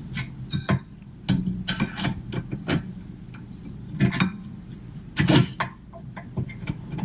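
Irregular metallic clicks and knocks of hand tools and suspension parts being handled while control arms are fitted, one clink ringing briefly about half a second in and the loudest knocks about four and five seconds in.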